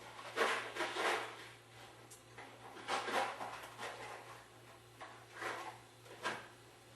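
Irregular rustling and light clattering as small hardware, new nylock nuts, is fetched and handled, over a faint steady low hum.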